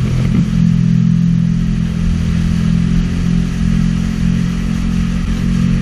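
Sea-Doo jet ski engine running at a steady pitch.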